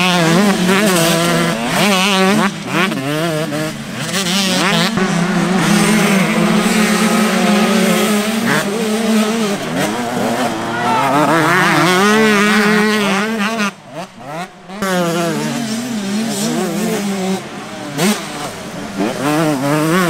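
125cc two-stroke motocross bike engines racing at wide-open throttle, revving up and down as riders shift and accelerate, with several bikes' engine notes overlapping. The sound briefly drops away twice a little past the middle.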